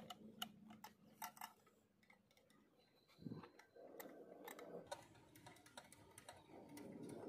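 Faint, irregular metal clicks and ticks of a screwdriver turning out the screw that holds the paddle on a Honeywell flow switch's brass fitting, with one soft knock about three seconds in.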